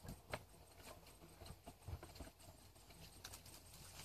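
Near silence with faint, scattered clicks and taps, loudest about a third of a second in.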